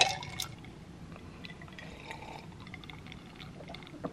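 Ice cubes clinking in a wine glass, then the fizzing of a sparkling-water drink over ice, faint, with scattered tiny crackles, and one more light clink near the end.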